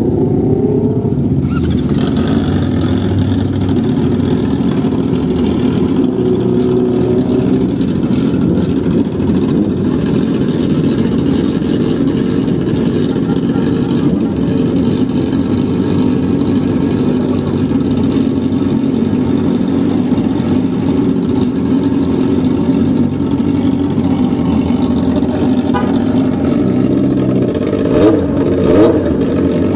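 Yamaha R6's inline-four engine running through an Akrapovic megaphone exhaust, holding a steady idle, with two short throttle blips near the end.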